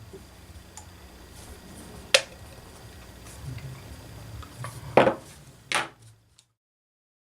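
Small metal parts of a model glow engine being handled on the bench: a few sharp clicks and knocks, one about two seconds in and a louder pair near the end, after which the sound cuts off abruptly.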